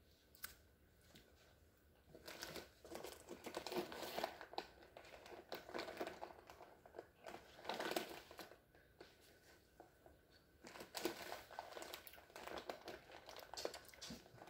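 Irregular crinkling and rustling in clusters, starting about two seconds in: something crinkly being handled close to the microphone.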